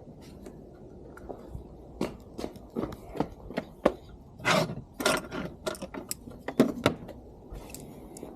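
Irregular sharp clicks, clinks and knocks of hand tools and small metal parts being handled, denser in the middle, over a low steady background hum.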